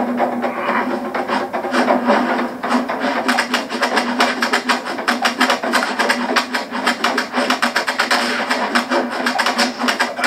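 Rapid flurry of cartoon fight hit sound effects, punches and blocks landing several times a second, dense from about three seconds in, over a steady music backing.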